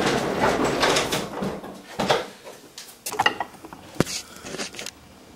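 A workshop machine being pushed across the floor: a rough scraping rumble for the first second or so, then several knocks and clunks as it is set in place, the sharpest about four seconds in.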